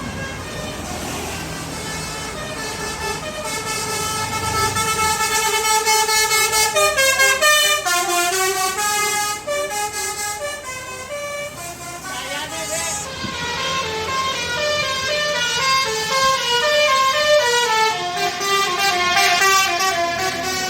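Bus 'telolet' musical horn (a basuri horn) playing a tune: several air-horn tones sound together and step up and down in pitch, growing louder about four seconds in and going on to the end.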